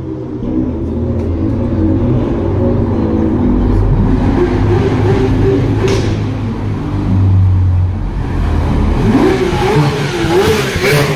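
Porsche 911 GT3's flat-six engine revving as the car drives up a narrow cobbled street. The pitch rises about four seconds in, then climbs and falls several times in quick throttle blips as it passes close near the end.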